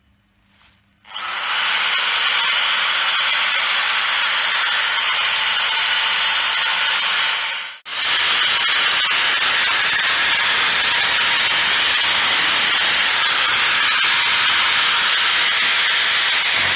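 Angle grinder running against a Brembo four-piston brake caliper, cleaning the cast metal body: a steady, loud grinding hiss that starts about a second in and breaks off briefly near 8 seconds before running on.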